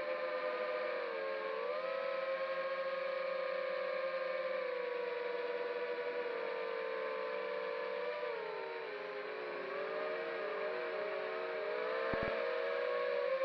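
Brushless motors and 5-inch propellers of an Eachine Falcon 250 FPV racing quadcopter whining in flight, heard from its onboard camera. Several close tones rise and fall together as the throttle changes, wavering more in the second half.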